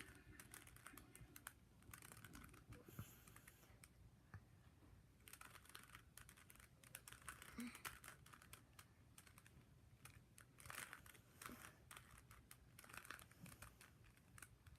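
Rubik's Cube faces being turned by hand: faint, quick plastic clicks and clacks in irregular runs as the cube is solved.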